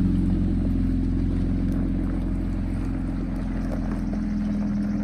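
Jeep engine running steadily in a low hum, easing slightly in level over the last couple of seconds.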